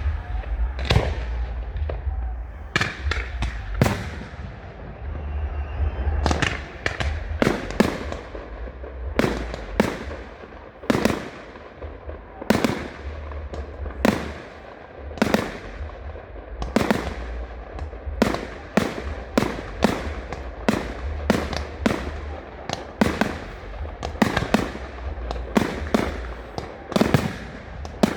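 Fireworks display: an irregular run of dozens of sharp bangs from shells bursting in the air, some with a short echo after them, coming faster and closer together in the second half.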